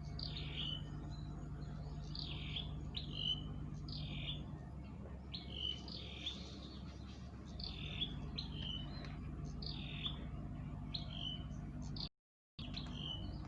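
A bird calling over and over, short high chirps that drop in pitch, often in pairs, about one to two a second, over a steady low hum.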